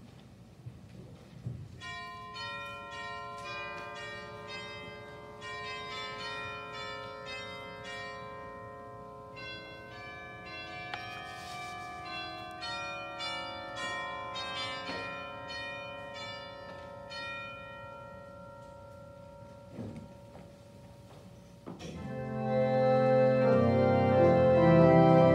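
Bells ringing a slow melody of single notes that ring on and overlap. About twenty-two seconds in, an organ comes in loudly with sustained chords.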